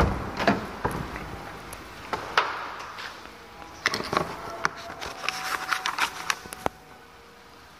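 Handling noise: scattered light clicks, knocks and rustles as a plastic diagnostic scan-tool connector and its cable are picked up from a wooden table among papers, busiest over the last few seconds.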